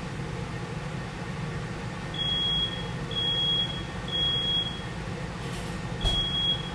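High-pitched electronic beeps, each just under a second long: three in a row about a second apart, a short pause, then a fourth near the end, over a low steady room hum.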